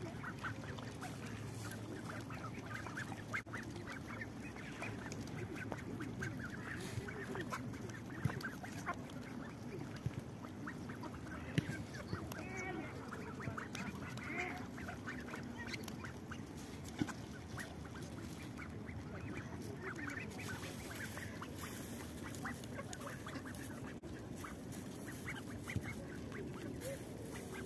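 A group of young mallards feeding on scattered grain, giving soft low calls, with many small clicks from their bills pecking among the stones.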